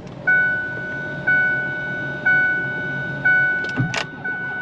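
A truck's warning chime ringing once a second, each a clear bell-like tone with a sharp start that fades over almost a second, typical of a door left open with the key on. A sharp knock sounds about four seconds in.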